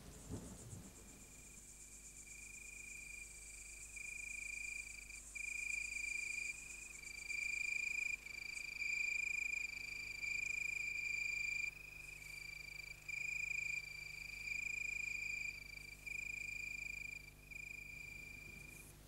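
A cricket trilling: a clear, high, even trill that runs in stretches of about a second with short breaks between them, over a faint low hum.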